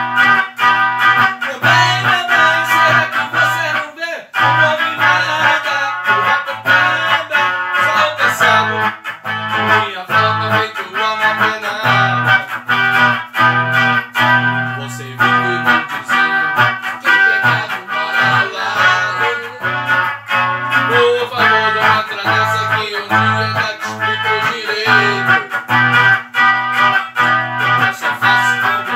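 Music: electric guitar played through an amplifier, with a steady bass line underneath.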